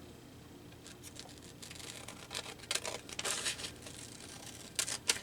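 Dull non-stick craft scissors cutting through glued magazine paper in short, scattered snips, with paper rustling; two sharper snips near the end.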